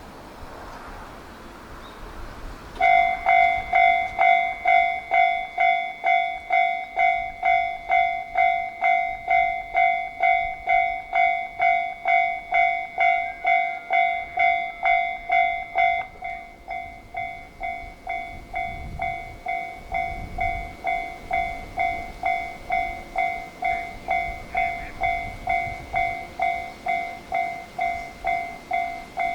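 Japanese railway level-crossing alarm ringing: an electronic bell repeating at a little under two strokes a second, starting about three seconds in. About halfway through it drops to a quieter level. A low rumble builds underneath in the second half.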